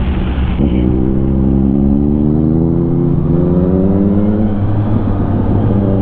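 Yamaha XSR900's inline-three motorcycle engine accelerating, its pitch rising steadily for about four seconds after a brief dip about half a second in, then levelling off.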